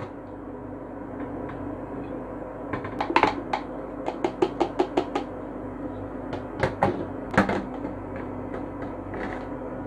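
Grated coconut being tipped from a plastic cup into glass jars, with clinks and knocks of the cup and jars: a quick run of light taps about four seconds in as the cup is knocked against a jar, and a few louder knocks of a glass jar on a stainless-steel drainboard a little later. A steady low hum runs underneath.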